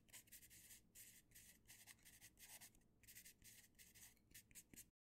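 Very faint pencil scratching on paper in a quick run of short, irregular strokes, as in writing out a line of text. It cuts off abruptly just before the end.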